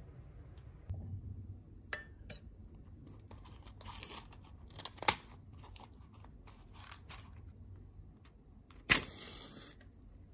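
Light clicks and taps of a candle's metal lid being handled and set down on a marble tabletop. About nine seconds in a wooden match is struck: one sudden, short, scratchy rasp as it flares.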